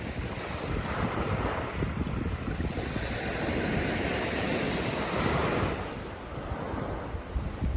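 Ocean waves breaking and washing up a shore: a wash of surf that swells about a second in, holds, then fades near the end, over a low rumble of wind on the microphone.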